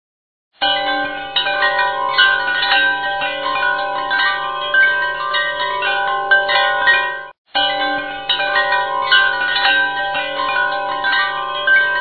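Background music of chiming, bell-like tones that ring and overlap. It starts about half a second in and cuts out briefly a little past the middle before resuming.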